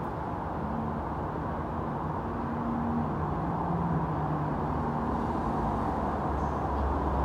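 Steady vehicle rumble with a faint engine hum that comes and goes.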